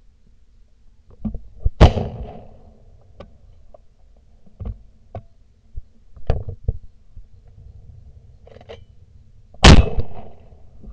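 Two shotgun shots, about two seconds in and again near the end, each followed by a short echo, with lighter knocks and clicks in between.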